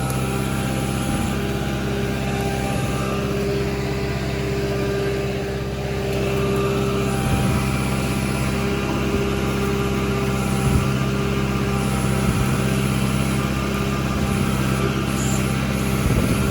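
Engine of a digging machine running steadily at a constant speed, with a few faint knocks of metal and dirt.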